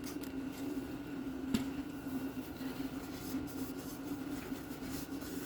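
Faint rubbing and scraping of a bolt being cleaned by hand, with one sharp click about a second and a half in. A steady low hum runs underneath.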